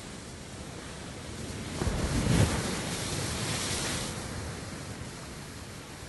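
Sea waves breaking against a cliff: a steady wash, then one wave crashes about two seconds in with a low boom, followed by a hissing rush of spray and foam that fades over the next couple of seconds.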